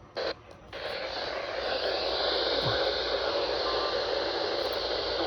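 A weather radio receiver giving out a steady static hiss. The hiss starts about a second in, after a couple of brief bursts.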